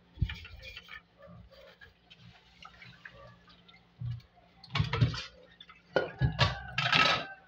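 Rinsing at a stainless-steel sink: water splashing and dripping, with a metal pot knocking against the basin. The loudest splashing comes about five seconds in and again near the end.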